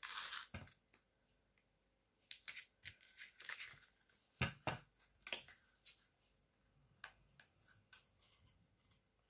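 Double-sided tape being pulled and torn from its roll and pressed onto card, heard as a short scratchy pull at the start followed by scattered faint rustles and clicks of paper and card being handled.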